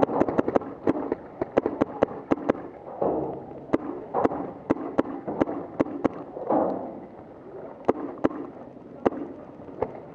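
Paintball markers firing a string of sharp pops, about three a second and irregular, some loud and close, some fainter; the loudest are plausibly the close-up Empire Axe pump marker.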